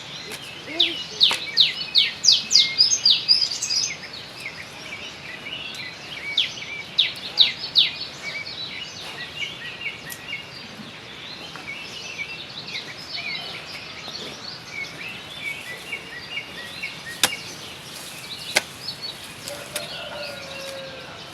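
Birds calling and chirping: a fast run of loud, sharp high notes in the first few seconds and again around seven seconds in, with scattered chirps throughout. Two sharp clicks come near the end.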